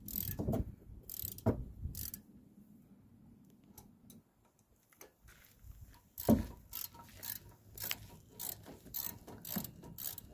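3/8-inch drive ratchet with a 13 mm socket clicking while loosening a rear brake caliper bolt. A few clicks in the first two seconds, a pause, then about two clicks a second from about six seconds in.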